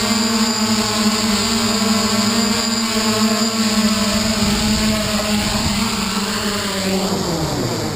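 Hexacopter's six electric motors and propellers humming steadily as it descends to land, then winding down with falling pitch near the end as the motors stop.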